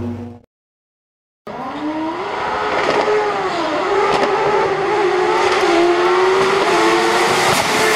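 Silver Car EF10 race car's engine accelerating hard after a second of silence, its pitch climbing and dropping back a few times.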